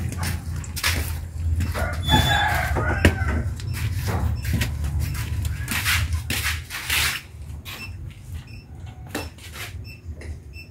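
Footsteps and scattered knocks over a steady low rumble while walking, with a bird calling briefly about two seconds in.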